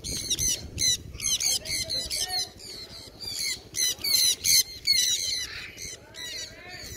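A flock of conures screeching in flight: a rapid, overlapping run of short, high-pitched squawks, several a second.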